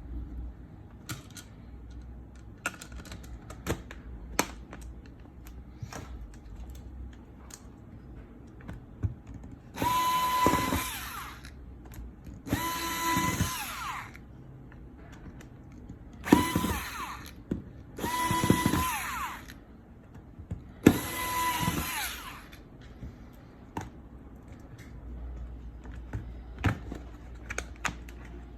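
Small electric screwdriver driving screws into a tablet's plastic case: five short runs of about a second each, the motor pitch dropping as each one stops. Light handling clicks fall between the runs.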